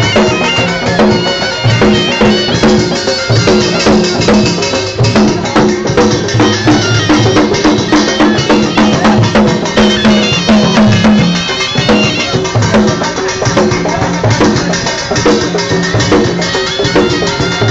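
Balochi lewa folk music: drums beat a steady, quick rhythm under a melody line.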